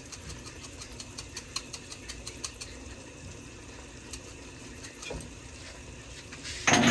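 Masala cooking in a stainless steel pot, crackling faintly with scattered ticks through the first few seconds. A short, loud clatter comes near the end.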